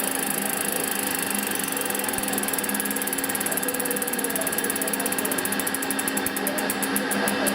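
Koozer XM90 rear hub's freehub ratcheting as the wheel coasts: a fast buzz of pawl clicks that slows into separate ticks toward the end as the wheel winds down. The hub has about 200 km of riding on it, hard trails included.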